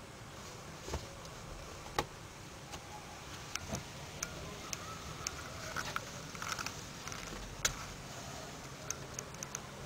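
Kittens scuffling and wrestling on a blanket in a cardboard box: scattered soft taps and scratchy clicks from paws and claws over a steady low hiss.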